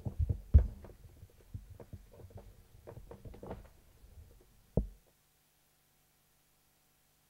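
Handling noise picked up close on a lectern microphone: irregular knocks, bumps and rustles, with loud dull thumps at the start and one more just before the sound cuts off suddenly about five seconds in, leaving only a faint steady hum.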